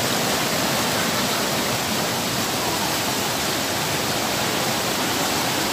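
Muddy floodwater from an overflowing river rushing steadily and turbulently through a street.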